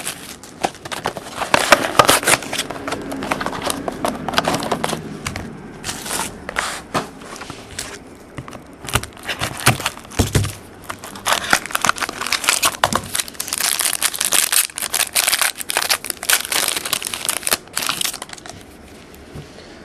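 Wrapping crinkling and tearing in irregular crackles as a 2010 Triple Threads baseball card box is opened, with a lull partway through.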